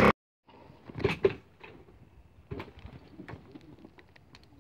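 Scattered knocks and clicks of fishing gear being handled on a wooden boat, the loudest a pair of knocks about a second in, after a brief cut to silence at the start.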